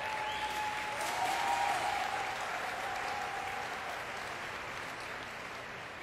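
Badminton arena crowd cheering and clapping, with a sustained shout in the first few seconds before the noise eases slightly.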